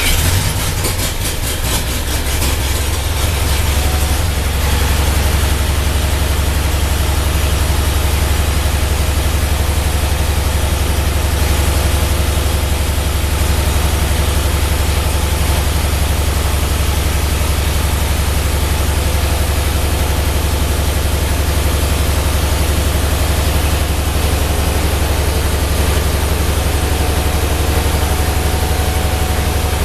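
Ford 8N tractor's flathead engine idling steadily just after starting, a little uneven for the first few seconds before it settles into an even run.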